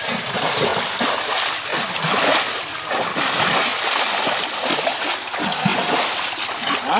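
Shallow pond water splashing and sloshing continuously as people wade through it knee-deep.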